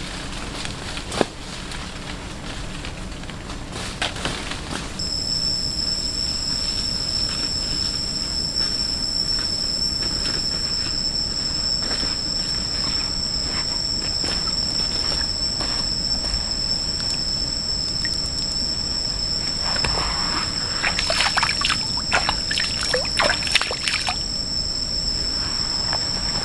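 Forest insects keeping up a steady high-pitched drone of two unbroken tones, starting about five seconds in, with footsteps on dry leaf litter near the end.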